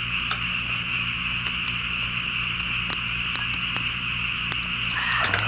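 A steady, high-pitched chorus of frogs, with scattered sharp crackles from the campfire.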